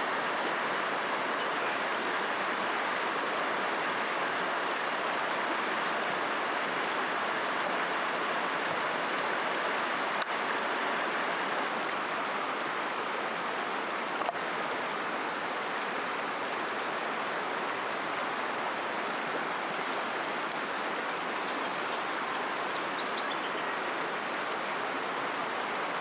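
River water flowing steadily, a constant even rush.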